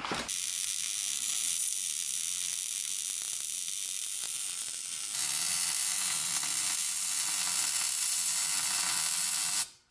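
Electric welding arc laying a continuous bead, a steady crackling sizzle that gets louder about halfway through and cuts off sharply near the end.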